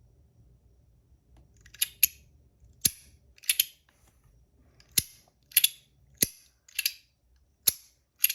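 Compoform Astronaut Coin fidget clicking sharply as it is slid back and forth, about a dozen loud snaps at an uneven pace, some in quick pairs, starting about two seconds in. Untaped, this coin is one of the loudest fidgets its owner has.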